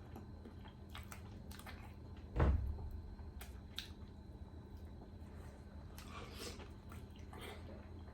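A person eating boiled sea snail meat, with soft chewing and squishing and small clicks of handling the food. One dull low thump comes about two and a half seconds in.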